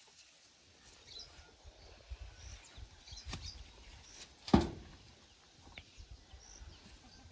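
Small birds chirping now and then, with a few scattered knocks and one sharp thump about four and a half seconds in.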